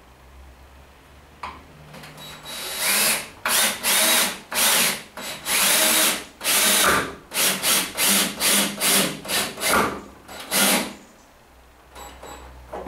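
Cordless drill with a crosshead bit driving long wood screws into timber: the motor whines in about a dozen short trigger bursts from about two to eleven seconds in, the bursts growing shorter and quicker toward the end.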